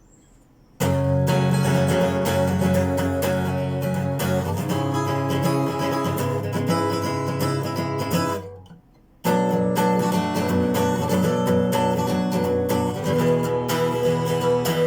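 Phill Pro acoustic guitar strummed in chords. It starts about a second in, breaks off for a moment just past the middle, then resumes.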